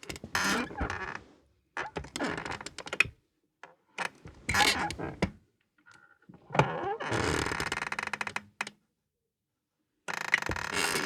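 Wooden chair squeaking: five separate creaks with short pauses between them, the fourth drawn out for about two seconds.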